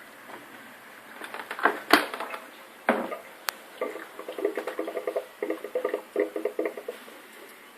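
Bosch SMS69M58EU dishwasher running its Turbospeed wash cycle: a few sharp clicks and knocks, then a fast rhythmic pulsing for about three seconds before it eases off near the end.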